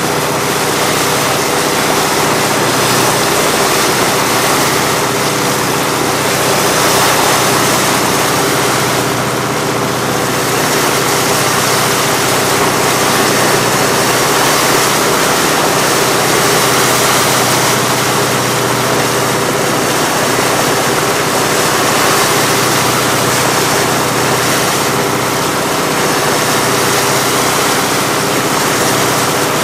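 A boat's engine running steadily at an even pitch, with a constant rushing noise of water and wind over it.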